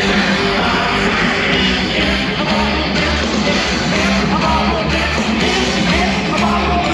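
Loud rock music with vocals, dense and steady, with a heavier bass coming in about two seconds in.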